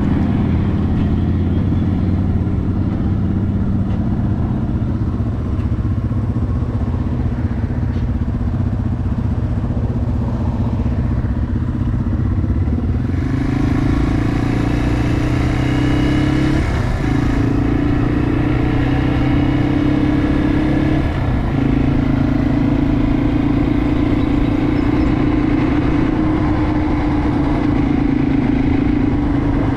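Yamaha TW200's single-cylinder four-stroke engine running while riding, steady at first, then picking up revs about halfway through, with two brief dips a few seconds apart.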